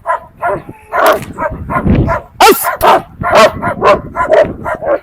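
Rottweiler barking repeatedly, about two to three loud barks a second, holding a decoy at bay in a bark-and-hold guard exercise rather than biting.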